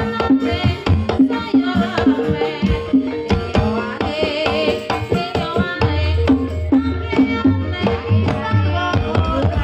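Live Javanese jaranan gamelan music: a kendang hand drum plays a fast, busy rhythm over metallophone notes and a held tone, with a high wavering melody line about four seconds in.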